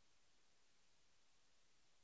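Near silence: only a faint steady hiss from the recording, with the preacher's microphone cut out.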